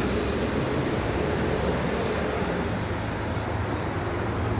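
Road traffic noise: a steady rumble from a passing motor vehicle that slowly fades.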